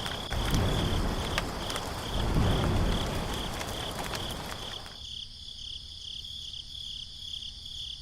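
Cricket chirping steadily in even pulses, about three a second, over outdoor background noise with a few light clicks. The background drops out abruptly about five seconds in, leaving only the chirping.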